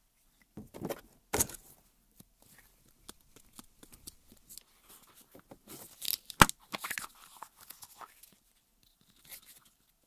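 Hands handling small rubber fidget toys and a plastic capsule: scattered rustles, taps and clicks, with one sharp click about six and a half seconds in.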